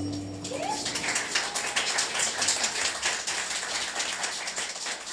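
The band's last held note dies away, then a small audience claps in scattered, irregular applause.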